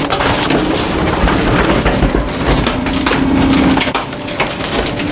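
Rear-loader garbage truck's hydraulic packer blade compacting a bulky upholstered item in the hopper: dense cracking and crunching as it is crushed, over a steady hum that swells about three seconds in.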